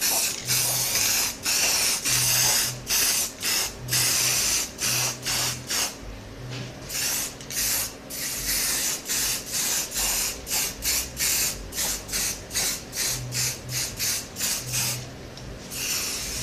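Aerosol can of black spray paint hissing in many short, quick bursts, a few each second, as the nozzle is pressed and released in passes, with brief lulls about six seconds in and near the end.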